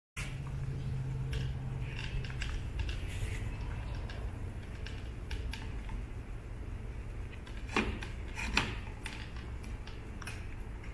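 Hand-stitching a leather lever cover onto a handlebar lever: faint scattered clicks and rustles of needles and thread being drawn through the leather, over a steady low hum. Two sharper clicks come close together about three-quarters of the way through.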